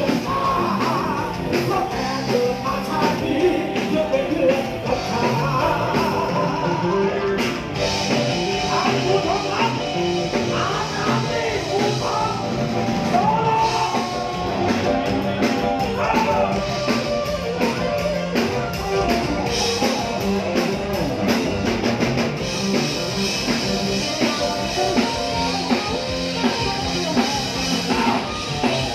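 Live band music: a singer over electric guitar, bass and drum kit, played loud through a stage sound system.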